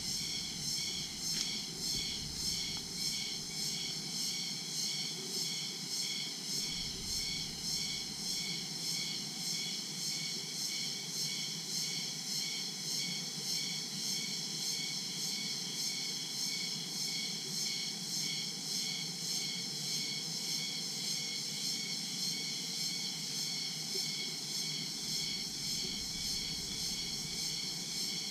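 Dense daytime chorus of crickets and other insects: a steady, high-pitched pulsing drone at about two to three pulses a second. A brief low rumble comes about six seconds in and again near the end.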